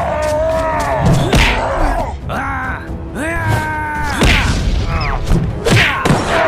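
Music with cartoonish sound effects: pitched tones that slide and bend, mixed with several sharp hits and low thuds.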